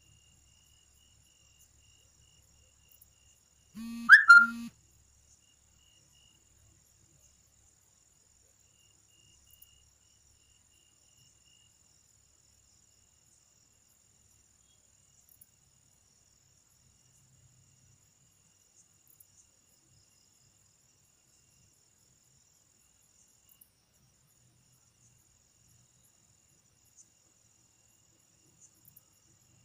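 Night insects trilling faintly and steadily at a high pitch. About four seconds in, a brief loud sound sweeps upward in pitch, lasting under a second.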